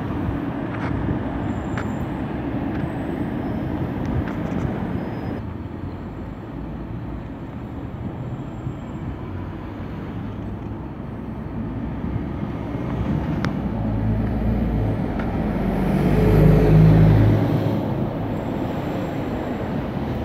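Steady street traffic noise, with a heavy vehicle's engine rumbling past and growing loudest about three-quarters of the way through before fading.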